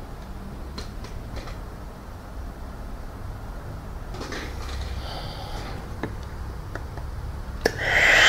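Philips PerfectCare Aqua steam generator iron releasing steam with a hiss, after its failed pump was replaced: a softer hiss about halfway through and a louder one starting near the end, with a few light clicks in between.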